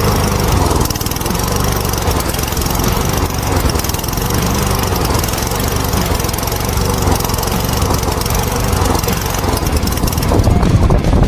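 A Cub Cadet walk-behind mower's 173cc PowerMore single-cylinder engine running steadily, getting a little louder and rougher near the end.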